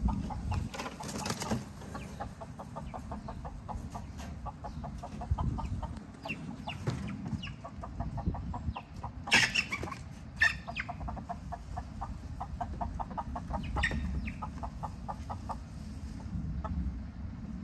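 Chickens, Rhode Island Red hens, clucking in runs of short, evenly spaced notes, with a few sudden scratchy rustles about halfway through and again later on.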